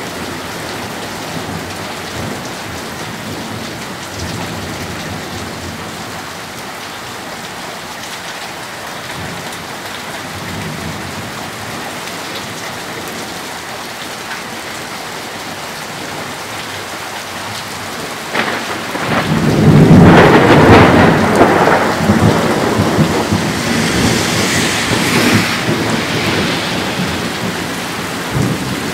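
Steady rain falling through a thunderstorm. About two-thirds of the way in, a sudden loud clap of thunder breaks out and rumbles on for several seconds.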